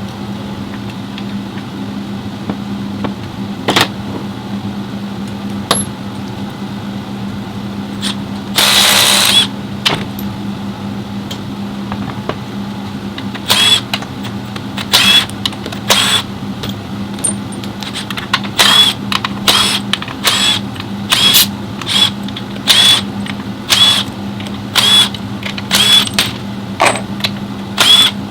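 A power tool runs in a long series of short bursts, roughly one a second, over a steady mechanical hum. About a third of the way in comes a single longer hiss lasting about a second.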